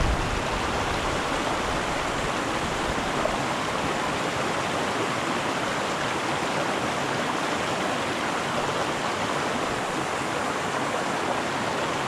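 Small mountain creek running over rocks and a little cascade: a steady rush of water.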